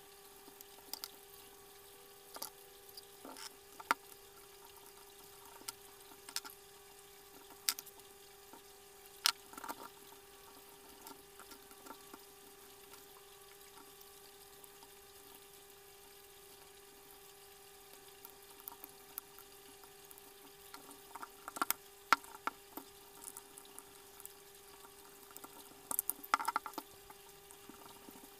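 Scattered plastic clicks and taps as a small Bluetooth speaker's circuit board and plastic housing are fitted back together by hand, with a busier run of clicks near the end. A faint, steady hum runs underneath.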